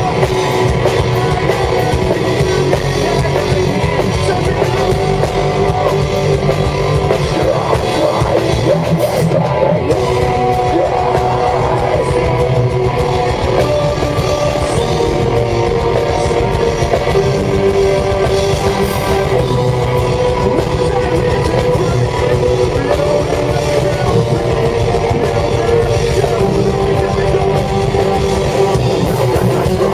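A metal band playing live: distorted electric guitars and a drum kit with vocals, loud and continuous, as a concert crowd hears it.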